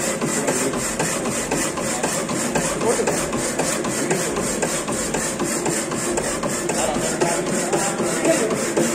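Workshop machine tool running with a fast, regular clatter of repeated strokes.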